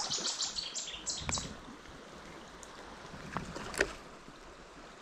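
River water running steadily, with a run of short, high, chirring notes in the first second and a half and a couple of sharp clicks.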